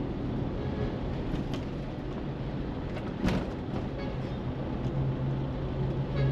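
Car driving: steady engine and tyre rumble with a low hum that grows louder near the end, and a single sharp knock about three seconds in.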